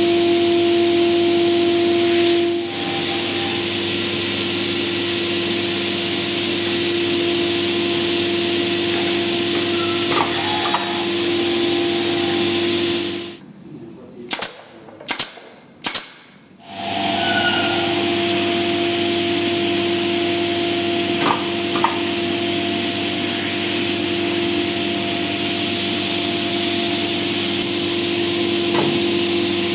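Edge banding machine running with a steady, even hum. About halfway through the hum drops away, and in that quieter stretch a pneumatic brad nailer fires three sharp shots, each under a second apart, before the machine hum returns.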